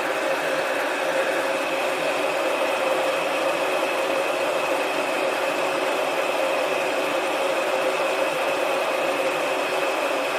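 Small heat gun running steadily, its fan blowing a rush of hot air with a steady hum and a higher whine, shrinking heat-shrink tubing over soldered wires.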